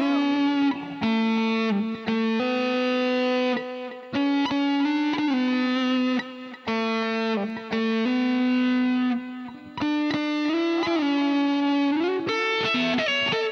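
Background music: a distorted electric guitar plays long, held melody notes with pitch bends, in phrases separated by brief pauses.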